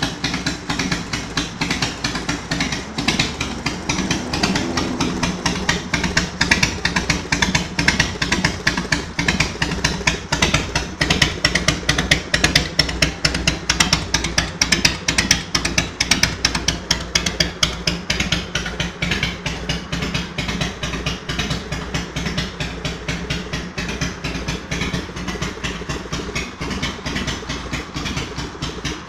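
Harley-Davidson FXR's V-twin engine running near idle, a steady rapid train of exhaust pulses throughout.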